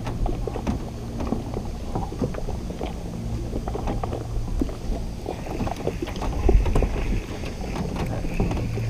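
Small waves lapping and slapping irregularly against the hull of a small fishing boat, over a low steady hum.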